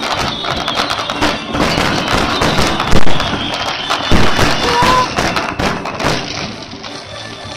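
Fireworks bursting and crackling in quick succession, with a loud bang about three seconds in and another shortly after.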